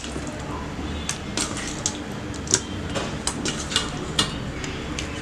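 Scattered light clicks of a spoon against a bowl while chicken wings are stirred through a masala marinade, over a low steady hum.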